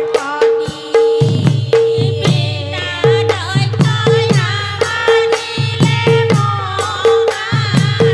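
A group of women singing an Assamese folk song together, with a barrel drum beating a steady rhythm and hand claps.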